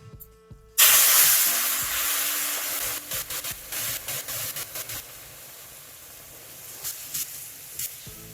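Hot water poured into a hot pan of roasted semolina and gram flour: a sudden loud hiss and sizzle about a second in, fading over the next few seconds with scattered crackles.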